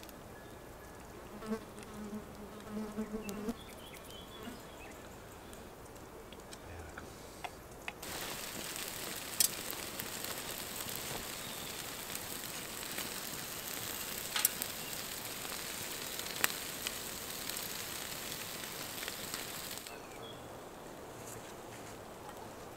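Food sizzling on a hanging grill over an open wood fire, an even hiss with sharp crackling pops from the fire. It starts suddenly about eight seconds in and stops suddenly around twenty seconds, with quiet ambience before and after.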